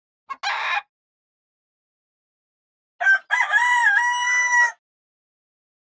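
Rooster crowing once, about three seconds in: a couple of short notes, then a long held note. Near the start, a short rasping call.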